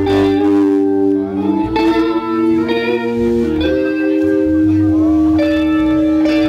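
Live band playing: sustained guitar chords that change every couple of seconds over a low bass.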